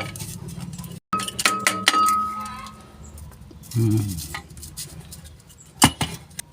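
Loose steel clutch parts clinking against each other: a few light clinks about a second in, one ringing on briefly as it dies away, then a single sharp metallic knock near the end.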